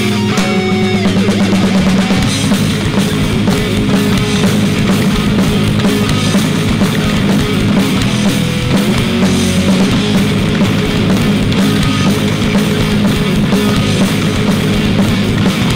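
Live rock band playing: two electric guitars, a bass guitar and a Yamaha drum kit, loud and continuous.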